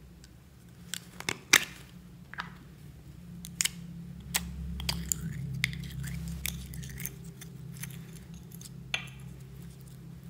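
Plastic lid of a store-bought slime cup being pried off, with a few sharp clicks and snaps about a second in. Then the slime is pulled out of its cup and stretched by hand, giving a run of wet crackling pops and clicks.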